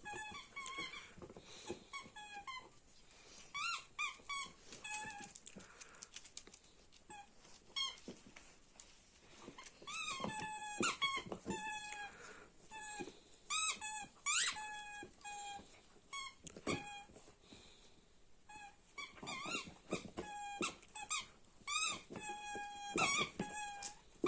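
A Wachtelhund puppy chewing a rubber squeaky ball, making it squeak over and over in quick clusters. Most squeaks are short and held at one pitch, some bend up or down, and there are brief pauses between bouts.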